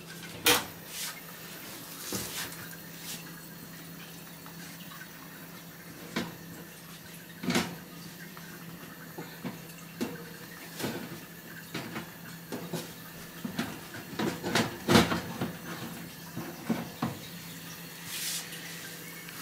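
Knocks and clanks of a cooker's oven door being opened and a metal baking tray being slid out and handled in oven gloves. The knocks come singly every few seconds at first, then crowd together and grow loudest a little past the middle.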